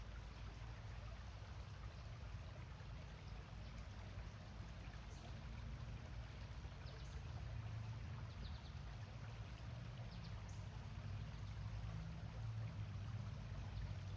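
Small rocky stream flowing steadily, faint, over a low rumble, with a few faint short high chirps in the second half.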